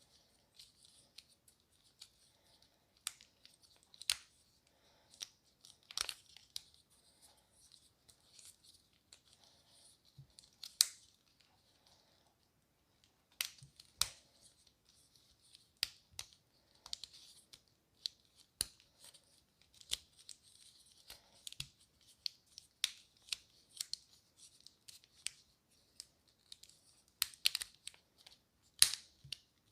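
Silicone pop-it fidget toy bubbles being pressed and popped by hand: irregular sharp clicks and pops, a few a second, with a soft crinkly rustle between them and a short pause partway through.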